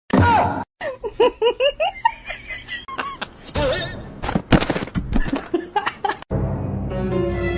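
A burst of short, high, squealing calls, rising and falling like giggling, mixed with clicks and knocks. It cuts off about six seconds in and is replaced by music with held notes.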